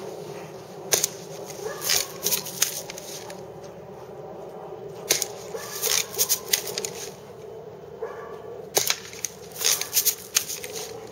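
Daisy lever-action BB gun being cocked and fired several times: clusters of sharp clicks and snaps with pauses between them, over a steady low hum.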